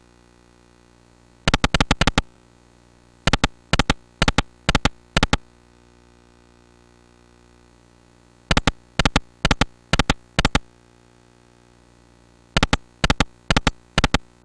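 Video slot machine's reel sound effects: quick clusters of sharp clicks as the reels spin and stop, several times, each later cluster made of about five double clicks roughly half a second apart, over a faint steady hum.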